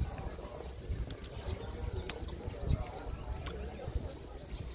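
Small birds chirping in short, quickly repeated notes, over a low rumble with a few sharp clicks.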